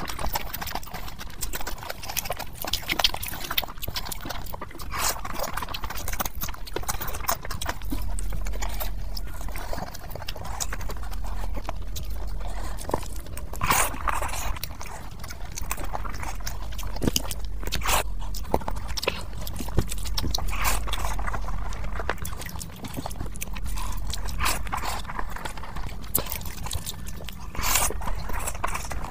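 Close-miked chewing and lip-smacking of a big mouthful of fried rice eaten by hand, with many sharp wet mouth clicks at an uneven pace.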